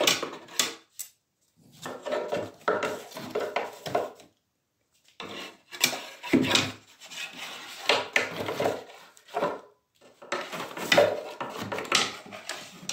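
A wooden crate being shifted and dragged over a tiled floor, scraping and knocking in about four bouts with short pauses between.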